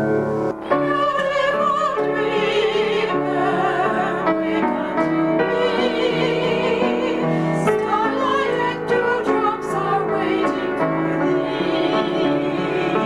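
Two women singing in a classical, operatic style with strong vibrato, accompanied by a piano. The voices come in just under a second in, after a brief break in the piano.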